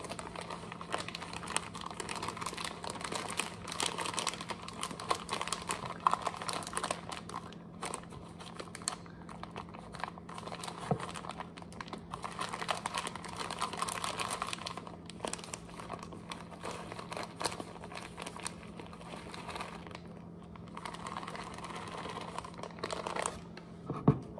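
Plastic bag of shredded coconut flakes crinkling and rustling as it is handled and shaken out, over a faint steady low hum, with a knock near the end.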